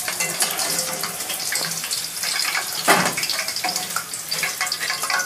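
Hot oil sizzling and crackling as hard-boiled eggs fry in a pan, with one sharper clatter about three seconds in.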